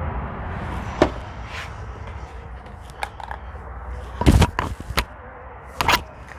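Handling noise from an air rifle being lifted off its stand: scattered clicks, then two loud clusters of knocks about four seconds in and again near the end.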